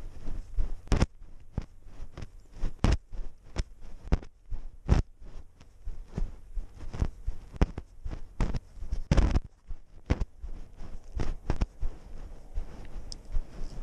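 A cat's paws crunching over dry grass and crusty snow, picked up close by a camera strapped to the cat: irregular crunches and knocks, one to three a second, with a longer, louder scrape about nine seconds in.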